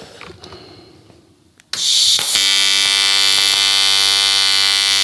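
AC TIG welding arc on 3 mm aluminium sheet. After quiet, the arc strikes with a sudden burst of hiss and settles into a loud, steady buzz.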